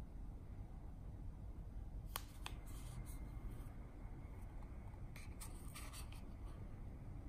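Foil stick packet of powdered tea crackling and crinkling as it is handled and tipped to empty into a ceramic cup: a couple of sharp cracks a little after two seconds in, then a cluster of crackles around five to six seconds.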